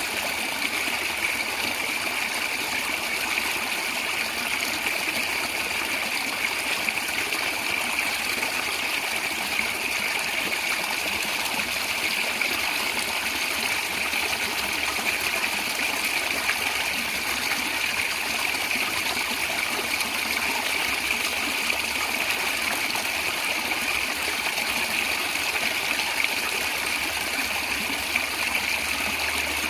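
Natural stream water running and gurgling steadily, with no breaks or changes.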